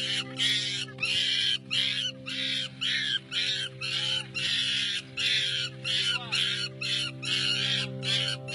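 Young ape screaming in a steady run of short shrieks, about two to three a second, in distress at being left behind, over background music with a steady held chord.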